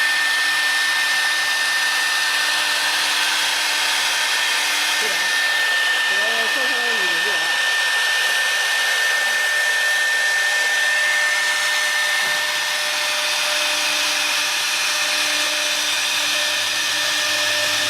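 4-axis CNC router running its spindle and carving, a steady high whine over the hiss of the cutting bit. About two-thirds through, the whine drops away and lower steady tones take over.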